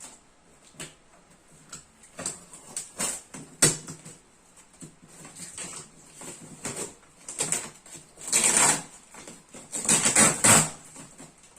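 Cardboard box and packaging of a flat-packed gaming chair being handled and opened: scattered knocks and clicks, with two longer rustling, scraping stretches about eight and ten seconds in.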